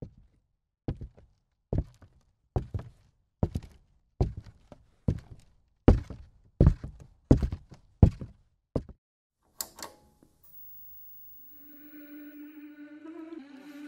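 About a dozen dull, heavy thuds, evenly paced roughly one every 0.8 s. Then a single sharp click as the old CRT television is switched on, and a steady humming tone with several pitches fades in about three seconds later.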